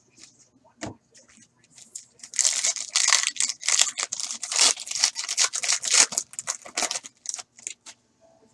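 A Panini Contenders hockey card pack being torn open, its wrapper crackling and crinkling for about five seconds from a couple of seconds in, with a few light clicks before and after.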